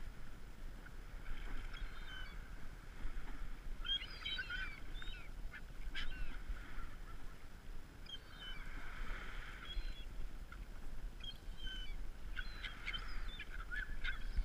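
Gulls calling around a feeding spot, short harsh cries coming in several bursts, busiest about four seconds in and again over the last few seconds.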